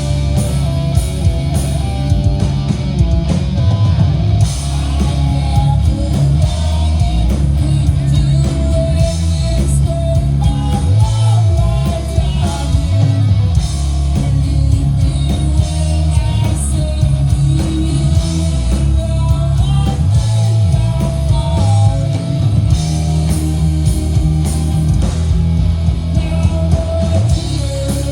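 Rock band playing a hard rock song at full volume: electric guitar melody lines over heavy bass and drums, with singing.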